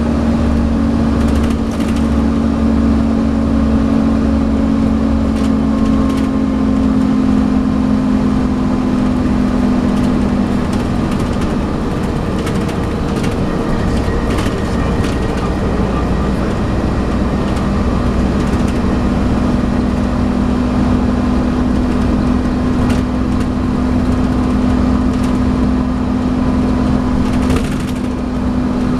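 Volvo B7TL double-decker bus's six-cylinder diesel running under load, with the steady whining 'hoover' note over the engine, which eases off around the middle and builds again later. Short clicks and rattles come through the body throughout.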